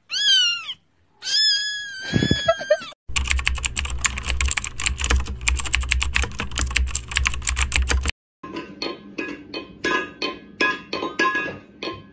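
Two cat meows, the second longer, then rapid typing on a computer keyboard for about five seconds, then a metal food bowl clinking against the floor over and over, about four times a second.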